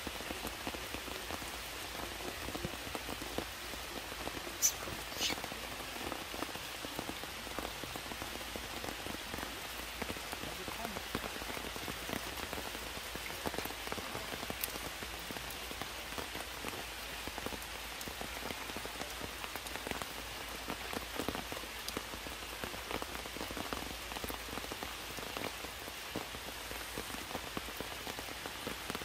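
Heavy rain falling steadily, an even hiss of rain with scattered individual drops striking close by. Two sharper clicks stand out about five seconds in.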